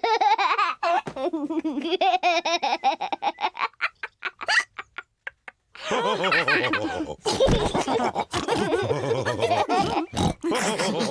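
Cartoon pig characters laughing heartily, with a short break about halfway through before the laughter picks up again.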